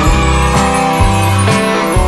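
Background music with a steady beat of about two strokes a second over held bass notes.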